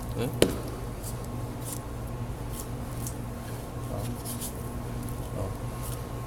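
Boning knife working through a leg of lamb: soft, irregular scrapes and slicing against meat and bone, over a steady background hum. A sharp click comes just under half a second in.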